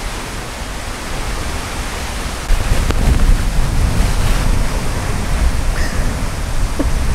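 Strong wind blowing over the microphone: a steady rushing hiss, with low buffeting rumble growing heavier about two and a half seconds in.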